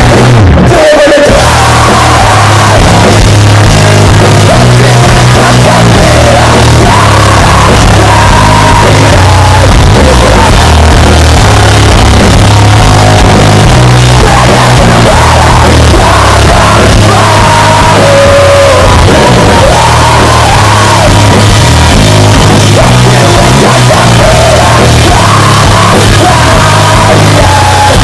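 Rock band playing live at full volume: distorted guitar, bass and drum kit, with shouted, sung vocals, recorded very loud on a phone in the crowd.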